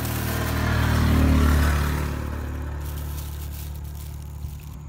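A motor vehicle passing on the road. Its engine and tyre noise swell to a peak about a second in, then fade away.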